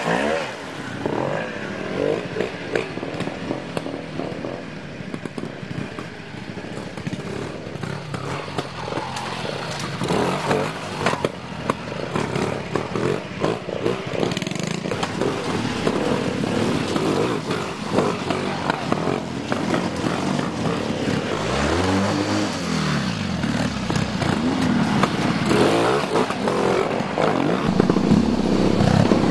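Engines of vintage British trials motorcycles revving up and down in short blips, with some clatter. The pitch rises and falls several times in the last third.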